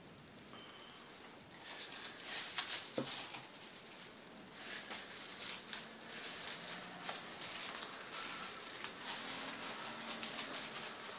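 Plastic wrap crinkling and rustling as it is put back over paint cups, with many small crackles and clicks.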